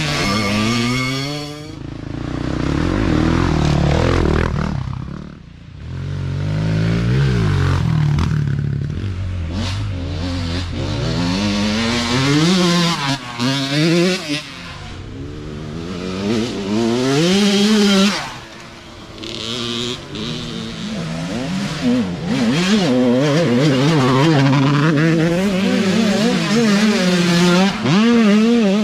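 Youth dirt bike engines revving up and down as one bike after another rides past. The engine pitch rises and falls over and over, and the sound swells as each bike comes close.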